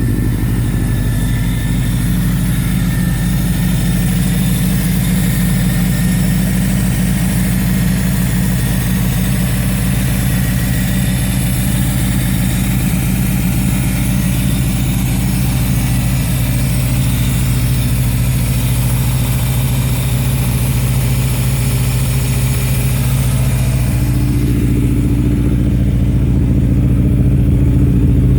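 The 1985 Toyota AE86 Corolla Trueno's engine running steadily. Near the end its note shifts and it gets a little louder.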